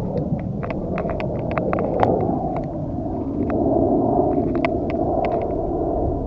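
Wind rumbling on an outdoor microphone, with a run of small clicks and rustles from the camera and clothing being moved; no shot is fired.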